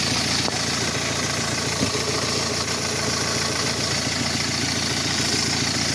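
Ford Focus diesel engine idling steadily.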